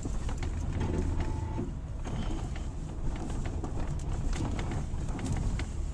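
Car driving up a hard-frozen, snow-packed slope, heard from inside the cabin: a steady low engine and road rumble with scattered sharp crackling clicks of the tyres on the frozen snow and ice.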